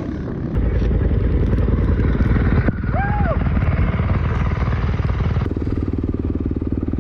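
Dirt bike engine running under throttle, its note changing abruptly twice as the rider works the throttle.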